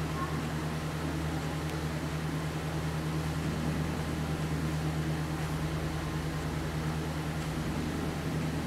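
Steady low machine hum with a faint even hiss, unchanging throughout.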